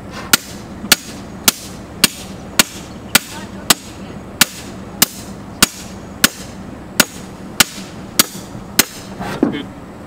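Steel T-post being pounded into the ground with a post driver: about fifteen sharp metal strikes at an even pace, roughly one every 0.6 seconds. The post is barely sinking because it has hit rock.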